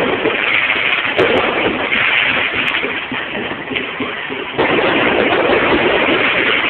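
Fireworks going off in a dense, continuous crackle of bangs and pops, getting suddenly louder about four and a half seconds in.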